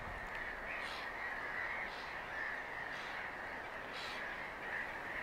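A colony of black-headed gulls calling: a dense, unbroken chorus of harsh calls, with single louder calls standing out about once a second.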